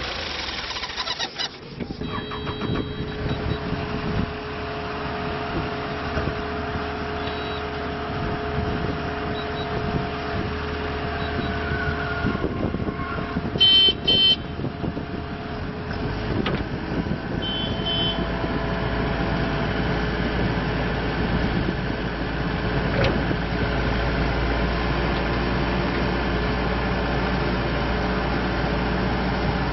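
Kubota SVL90-2 compact track loader's diesel engine running steadily. A short electronic beeping comes about halfway through, and the engine's low rumble grows heavier from then on.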